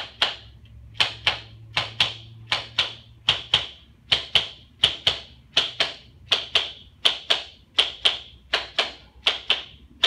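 Handheld high-velocity, low-amplitude atlas adjusting instrument clicking as it delivers a rapid series of small taps to the top of the neck. The sharp clicks come mostly in close pairs, about two to three clicks a second, with no pause.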